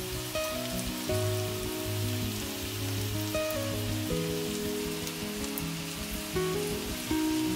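Background music of sustained chords that change about once a second, over the steady sizzle of potatoes frying in oil in a pan.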